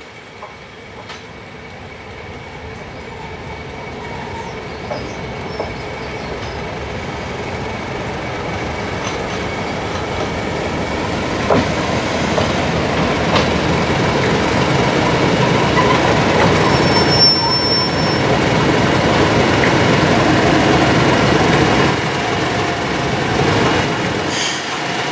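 Class 31 diesel locomotive hauling coaches, its engine growing steadily louder as it approaches and passes close by, with a steady high wheel squeal on the curve and a few sharp clicks over the rail joints.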